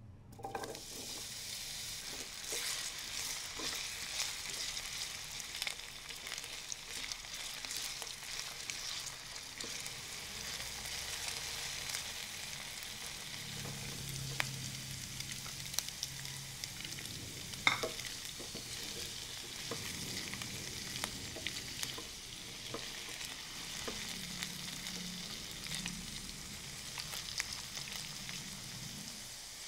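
Diced potatoes dropping into hot oil in a frying pan and sizzling steadily, the sizzle starting suddenly as they go in. Cubed meatloaf is tipped in partway through, with scattered crackles, and a spatula stirs the pan near the end.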